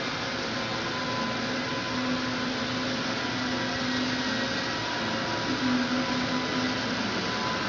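Welding arc giving a steady buzzing hiss, with a faint hum under it that shifts in pitch a couple of times.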